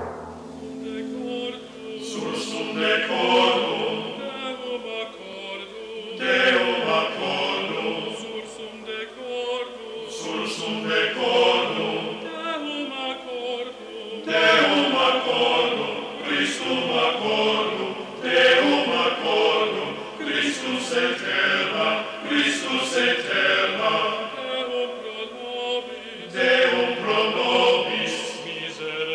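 Choir chanting as a horror film's score, the voices singing one phrase after another.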